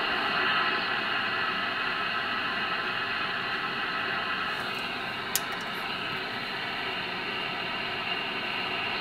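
Ten-Tec Jupiter 538 receiver's audio giving a steady hiss of static and band noise as it is tuned across empty frequencies in AM mode, with faint steady tones under the hiss. A single sharp click a little past halfway.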